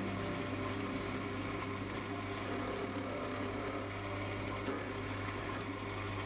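Mini lathe running steadily, a constant motor hum with an even hiss, while a tool cuts a groove in a spinning brass bar.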